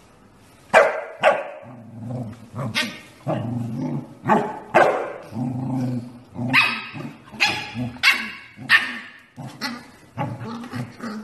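Corgi puppy yapping repeatedly in high, sharp barks, one or two a second, with a lower growl-like sound between the yaps.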